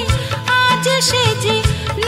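Bengali song music: a wavering melodic line with vibrato over a bass line and a few drum strokes.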